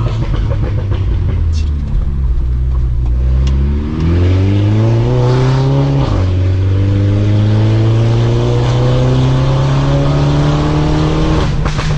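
Mini Cooper S F56's 2.0-litre turbocharged four-cylinder engine through an Armytrix valvetronic exhaust, heard from inside the cabin as the car accelerates. The engine note climbs in pitch, breaks at gearshifts about four and six seconds in, then rises steadily through a long pull until the driver lifts off near the end.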